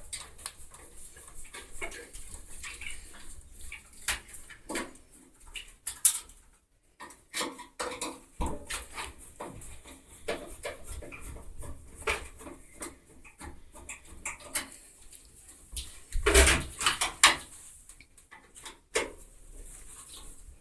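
Bolts being unscrewed from a washing machine's panel and counterweights: irregular metal clinks and clicks of the tool and loosened fasteners, with a louder clatter of parts about sixteen seconds in.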